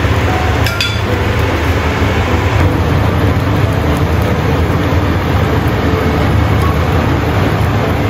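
Steady low rumble and hiss of stovetop cooking under the frying pan, with a brief clink just under a second in.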